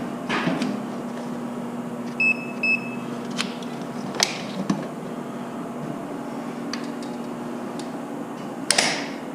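Two short electronic beeps from a pump controller's keypad about two seconds in, followed by a few sharp clicks, over a steady electrical hum. The pump does not come up after the attempted start.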